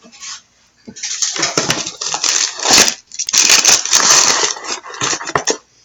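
Foil wrapper of a pack of trading cards being torn open and crinkled by hand, a dense crackling full of sharp clicks with a short pause about halfway through.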